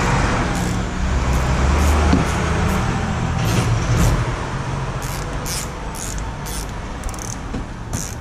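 Hand ratchet clicking in short runs, about two a second and closer together in the second half, as a brake caliper bolt is run in, over a steady low hum.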